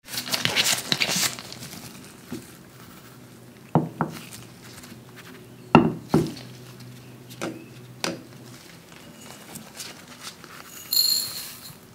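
Glass bowls set down and moved on a wooden cutting board: a rustle at the start, then a handful of separate knocks and clinks, and a short bright glass ring near the end.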